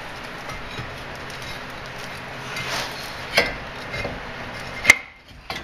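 Metal parts and tools clinking during hand work on a front wheel hub: a few sharp metallic clinks over a steady hiss, the loudest one ringing briefly near the end.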